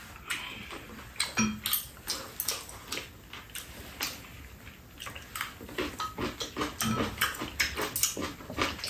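Eating at the table: spoons and chopsticks clicking against ceramic bowls, mixed with chewing and mouth noises, in many short irregular clicks.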